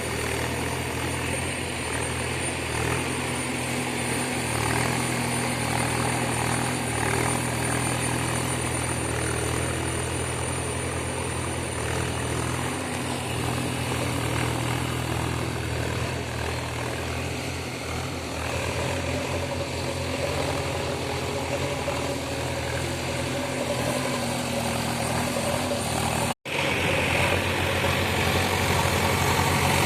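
Diesel engine of a JCB digger running steadily under work, a continuous low hum, with a split-second dropout about 26 seconds in.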